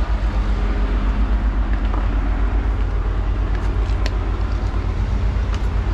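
Wind buffeting the microphone: a loud, fluttering low rumble.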